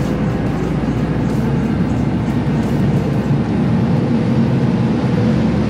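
Car ferry under way: a steady low engine rumble under an even rushing noise.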